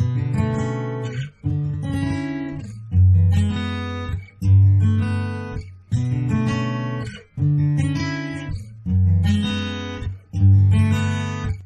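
Background music on acoustic guitar: chords that ring and fade, a new one struck about every one and a half seconds, starting suddenly out of silence.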